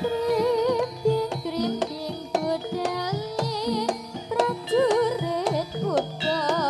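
Live Javanese jaranan music: a warbling, vibrato-laden melody line over steady held gong-chime tones and quick hand-drum strokes.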